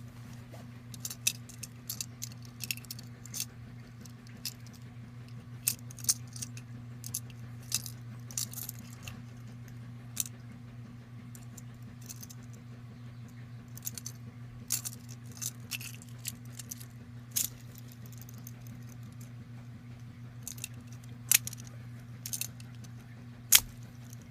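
Plastic Lego pieces of a homemade Lego fidget spinner clicking and clattering at irregular intervals as it is handled, with sharper clacks about 21 and 23 seconds in. A steady low hum runs underneath.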